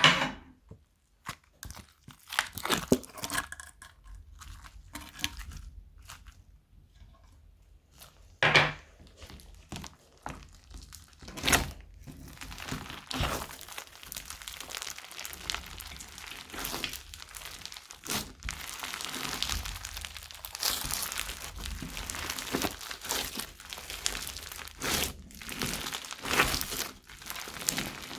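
Hands working crunchy slime mixed with bits of plastic bag and foam bricks: crinkling and crackling, scattered at first, then a dense continuous crackle from about halfway through, with a few louder pops.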